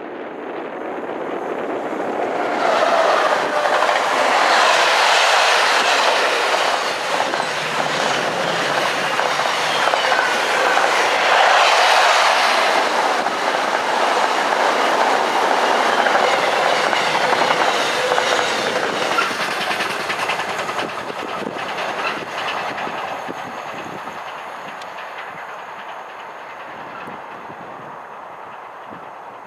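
An intermodal container freight train passing close by, its wagon wheels clattering over the rails. It builds quickly over the first few seconds, stays loud for much of the pass, then fades as the wagons run away into the distance.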